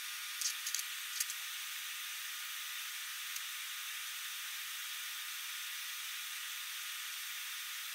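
Steady background hiss with a few faint small clicks in the first second and a half, as a small circuit board is handled and set down on the bench.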